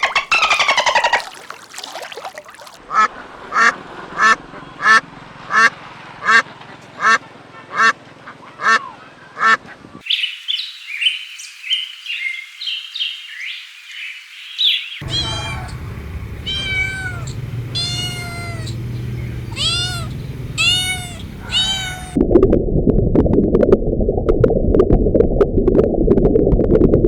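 Farm animal calls in a run of short cut-together clips: first a string of evenly spaced short calls, then high-pitched chirping, then arching pitched calls, and from about two-thirds of the way through a dense low noise.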